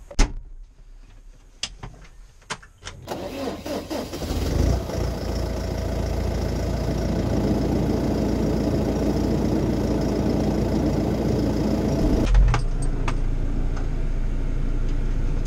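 A few clicks, then the Fendt 415 TMS's turbocharged four-cylinder diesel engine is started about three seconds in and settles into steady running. Near the end it sounds duller.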